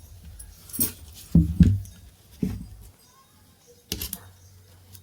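Metal parts and tools clinking and knocking, several separate knocks, the heaviest pair about a second and a half in and a sharp clink near the end, as an angle grinder is handled for repair.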